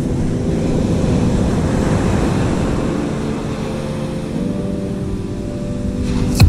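Surf breaking and washing up the beach, with wind on the microphone; the wash swells about a second or two in. Soft background music with held chords plays underneath, changing chord near the middle.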